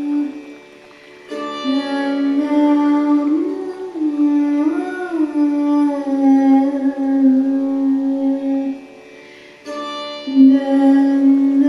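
Sitar played with a woman singing long, held notes that bend and glide. The music twice drops away for a moment and comes back with a sharp plucked attack on the sitar.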